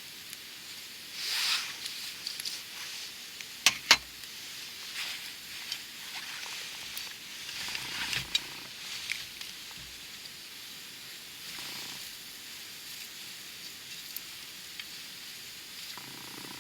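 Wood campfire burning, crackling with scattered small pops, and two sharp loud snaps about four seconds in.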